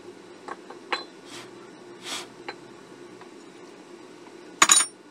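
Small clicks and two soft swishes of parts and tools being handled, then a louder metallic clatter with a brief ring near the end, over a low steady hum.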